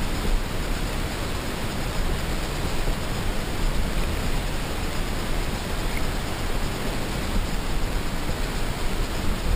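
Steady rushing noise of river water flowing over a gravel bed, picked up by a camera held underwater, heaviest in the low end.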